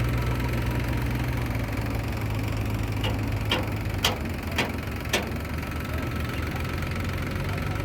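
Diesel engine of a backhoe or tractor running steadily at a low idle-like speed. Five short sharp clicks or knocks, about two a second, come near the middle.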